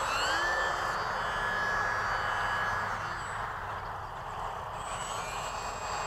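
Electric motor and GWS 5043 propeller of an E-flite UMX Pitts RC biplane whining in flight. The pitch rises as the throttle goes up right at the start, holds for about three seconds, then fades as the plane moves away, over a steady hiss.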